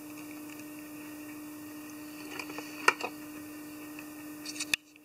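Small clicks and ticks from hands and tools working at a fly-tying vise, the sharpest about three seconds in, over a steady low hum. The background drops abruptly near the end.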